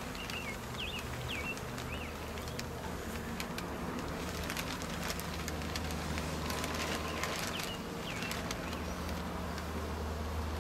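Honeybees from an open hive buzzing in a steady low hum, with light clicks and scrapes from the wooden hive frames being handled. A bird chirps a short phrase near the start and again past the middle.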